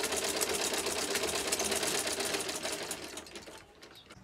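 Hand-cranked sewing machine running, its needle stitching in a rapid, even clatter. It slows and stops about three and a half seconds in.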